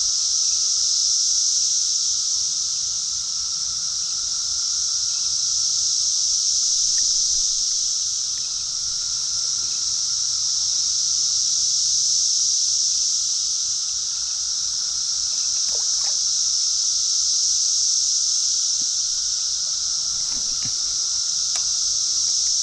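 A steady, high-pitched insect chorus buzzing without a break, swelling and easing slowly every few seconds.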